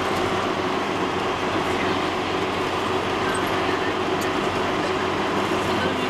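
Steady engine and road noise of a moving vehicle, heard from inside the cabin, with an even low hum under it.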